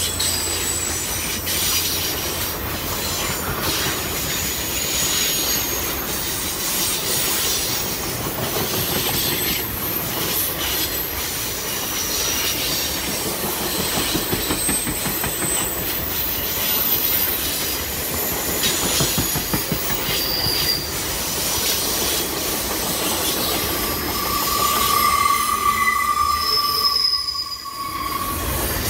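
Ringling Bros. and Barnum & Bailey circus train cars rolling past: a steady rumble of wheels on rail with faint clicks over the joints and high-pitched wheel squeal that comes and goes. Near the end a lower, louder squeal sounds, then the noise briefly drops.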